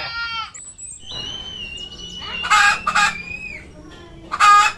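Hens calling: three short, loud squawking clucks, two close together about two and a half seconds in and one near the end, over a thin high whistling call. At the very start the tail of a sheep's bleat falls away.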